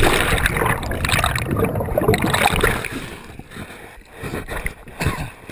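Water rushing and bubbling around a body-mounted GoPro just after a cliff diver plunges into a lake. The rush fades about three seconds in, followed by a few sloshes near the end as he surfaces.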